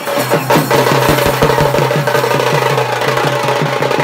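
Music led by fast, rapid drumming, with a steady low tone underneath.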